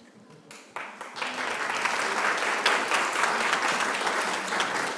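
Audience applauding: clapping breaks out about a second in and quickly swells to a dense, sustained round of applause.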